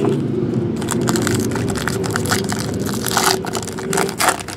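Foil trading-card pack wrapper crinkling and tearing as it is opened by hand, a rapid run of sharp crackles that is busiest near the end. A steady hum lies underneath and stops shortly before the end.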